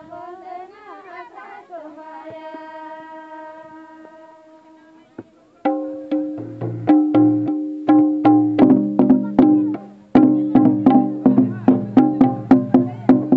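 Women's group singing a Santali song, holding one long note, then from about halfway a barrel hand drum played with hands in a fast rhythm of sharp, deep, pitched strokes, breaking off briefly and starting again near the end.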